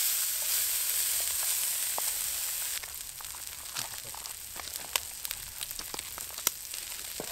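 Common prawns frying in oil in a steel paella pan, a loud dense sizzle. About three seconds in it drops to a quieter sizzle from the paella rice and prawns, with scattered crackles and pops.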